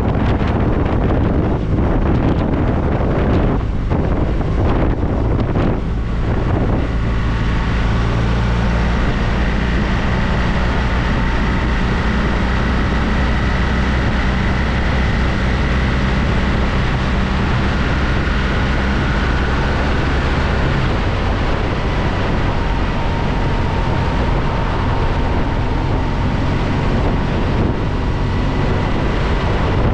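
Wind rushing over a GoPro microphone on a moving BMW R1200RT motorcycle, gusty for the first few seconds. From about seven seconds in, the bike's boxer-twin engine note holds steady under the wind, then fades again about two-thirds of the way through while the wind noise continues.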